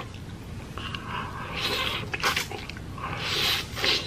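A person slurping up a mouthful of saucy instant noodles, with wet mouth and chewing noises. There are two long slurps, the second near the end.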